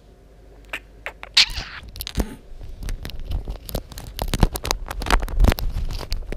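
Handling noise of a small camera sitting on the floor: fingers rubbing, tapping and knocking against it, a busy run of clicks, scratches and low thumps. It starts about a second in and gets denser towards the end.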